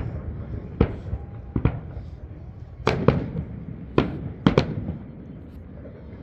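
Fireworks display: aerial shells bursting in a string of sharp bangs, about eight in six seconds, irregularly spaced, with some in quick pairs.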